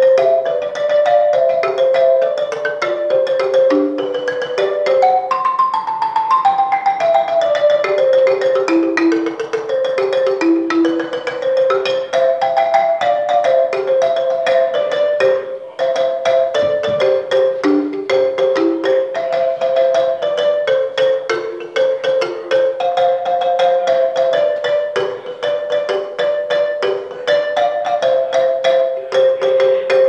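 Large wooden marimba played with mallets in a fast, unbroken stream of notes that keeps circling back to one repeated middle note, with a run climbing higher about five seconds in.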